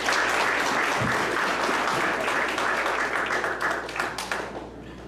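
A roomful of guests applauding, dense clapping that thins and dies away about four and a half seconds in.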